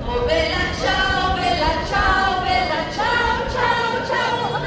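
Voices singing a melody in long held notes, with music.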